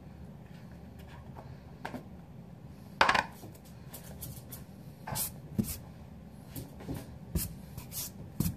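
A tin of dip tobacco and fingers being handled: a scatter of short clicks and taps, the loudest about three seconds in, with several more in the last three seconds, over a steady low hum.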